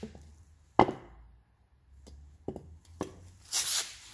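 Handling noises from scooter engine parts on a tiled floor. There is one sharp knock about a second in, two lighter clicks a little before three seconds and at three seconds, and a short rubbing hiss near the end.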